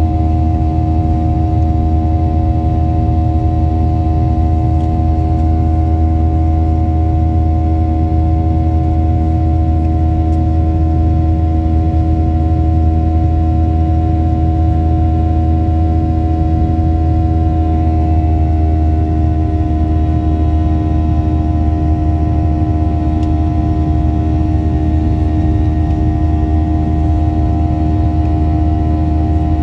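Cabin noise of a twin-engine jet airliner climbing after takeoff: a steady low rumble with the hum and whine of the turbofan engines. About 18 seconds in, the engine tones step slightly lower in pitch.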